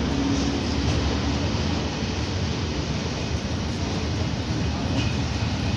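Intermodal container freight train's flat wagons rolling past the platform close by: a steady rumble and rush of wheels on the rails.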